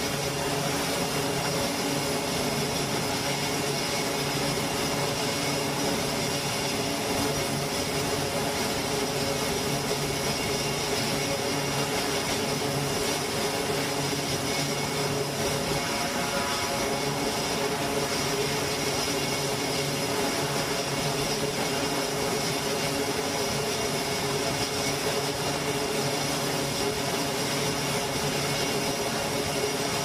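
E-2D Hawkeye's twin turboprop engines running steadily on a carrier deck before a catapult launch, with a constant propeller drone.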